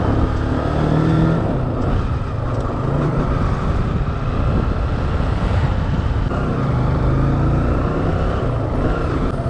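Motor scooter engine running while the scooter is ridden along the road, its pitch shifting a little with the throttle.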